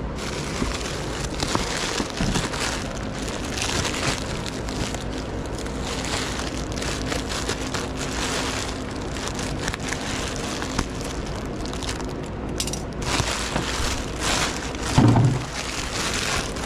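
Crinkly plastic packing wrap crackling and rustling as it is handled and torn open by hand, with a short low thump near the end.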